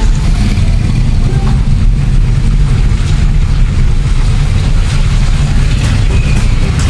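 Steady, loud low rumble of a car on the move, heard from inside the cabin: road and engine noise.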